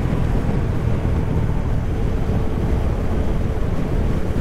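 Motorcycle engine running on the road under a steady low rumble of wind on the rider's microphone.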